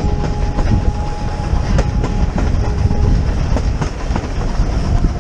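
Railway carriage running along at speed, a heavy low rumble with its wheels clicking irregularly over the rail joints, heard from just outside the coach window.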